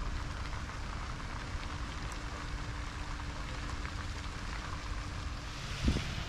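Steady rain falling on water and wet paving, with a faint steady hum underneath. There is one short low thump near the end.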